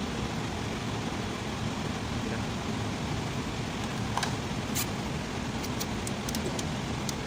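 A steady background hum, with a few short, sharp metallic clicks and taps from hand tools at work on the starter's mountings, the first about four seconds in and a quick cluster near the end.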